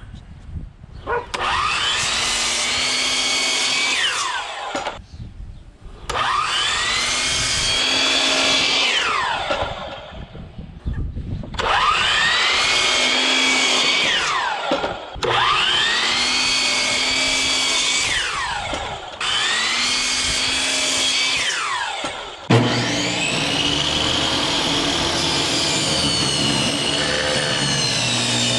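Electric miter saw cutting pine boards five times: each time the motor whines up to speed, runs through the cut and winds down in a falling whine. Near the end a table saw starts abruptly and runs steadily.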